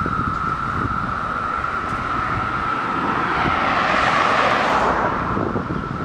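Chorus of 17-year periodical cicadas: a steady, high-pitched whistling drone, with wind buffeting the microphone. A car passes about three and a half seconds in, briefly louder over the drone.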